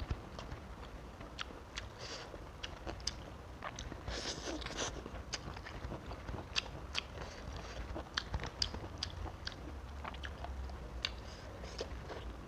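Close-miked chewing of fried tilapia, with many short, sharp crunches and clicks scattered throughout.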